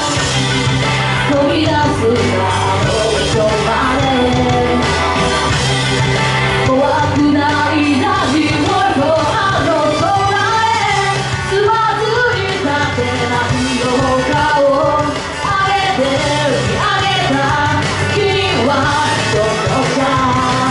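Live amplified music: a woman singing a melodic vocal line into a handheld microphone over backing music with a steady, repeating bass line.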